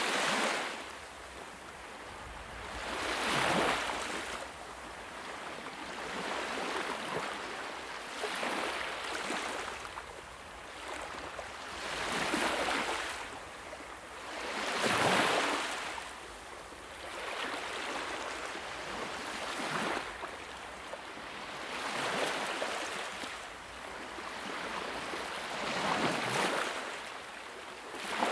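Sea waves breaking and washing up a beach, one surge every two to four seconds.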